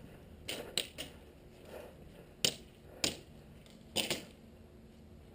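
Airsoft guns firing scattered single shots as sharp cracks, about six in all. There is a quick pair near the start, single shots around two and a half and three seconds in, and a close pair about four seconds in.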